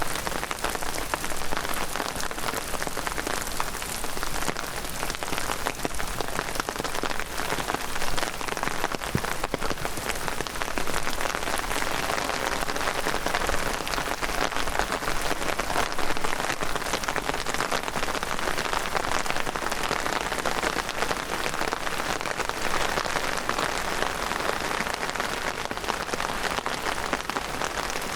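Heavy rain falling steadily, a dense patter of countless drops on the ground and vegetation, with a few slightly louder hits around eight and sixteen seconds in.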